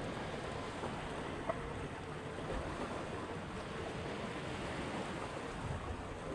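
Steady wash of wind and water at a harbour pier, with a faint steady hum underneath and a small click about one and a half seconds in.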